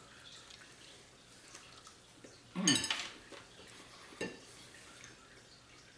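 Small clinks and taps of tableware, with a single sharper tap a little past four seconds. About two and a half seconds in, a brief voice sound falls in pitch.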